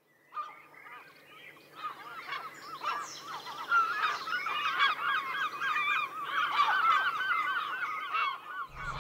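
A large flock of birds calling, many short, pitch-bending calls overlapping densely, growing fuller over the first few seconds.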